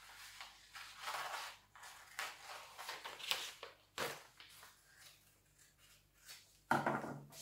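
Scissors snipping through a paper template sheet, with short rustles of the paper as it is cut and turned. A sharp click about four seconds in, and a louder burst of paper handling near the end.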